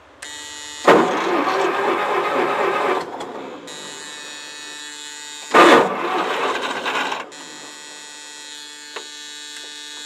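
Starter cranking the four-cylinder Wisconsin gasoline engine of a New Holland L425 skid steer, choked, in two tries of about two seconds each, without the engine catching. A steady electric buzz runs underneath from when the switch is turned on.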